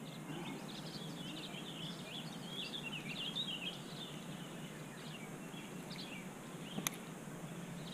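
Small birds chirping and twittering in quick, high, irregular notes over a steady outdoor hiss, with one sharp click about seven seconds in.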